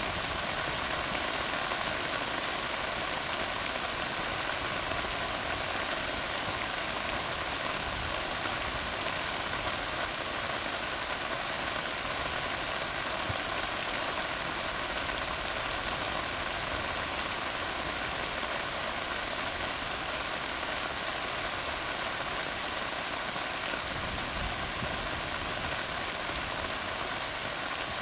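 Steady rain falling on a tar road, a dense even patter with fine scattered drop ticks.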